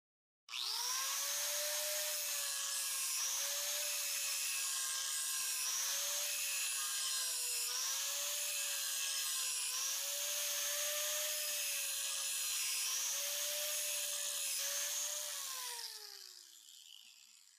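Handheld angle grinder switched on about half a second in and grinding the edge of a steel plate clamped in a vise, shaping the root face for a butt weld: a steady high motor whine over a hiss of grinding, the pitch dipping each time the disc is pressed into the steel. Near the end it is switched off and the whine falls away as the disc spins down.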